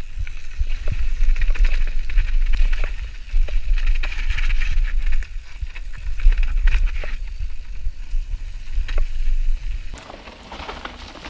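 Mountain bike descending a rough gravel and root trail, heard from a camera mounted on the bike or rider: heavy wind rumble on the microphone, with constant rattling and knocking from the bike over the bumps and tyres on loose gravel. About ten seconds in it cuts suddenly to a much quieter sound.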